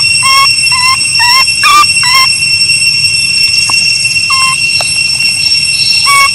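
A baby macaque giving short whimpering coo calls in a quick series of about seven during the first two seconds, then two more spaced apart later, the distressed complaining of an infant monkey. A steady high-pitched drone runs underneath.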